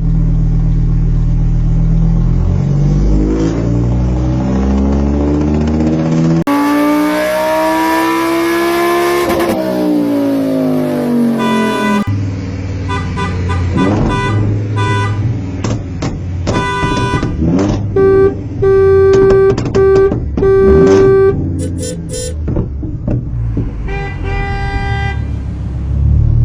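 A car engine revving, its pitch sweeping up and down, then a series of short car horn toots with four loud, longer honks about two-thirds of the way through.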